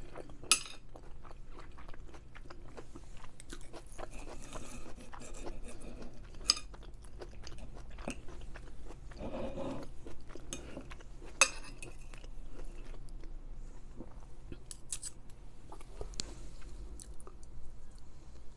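Close-miked chewing of a mouthful of stuffed pepper, soft wet mouth sounds coming and going. Three sharp clicks stand out: about half a second in, around six seconds and around eleven seconds.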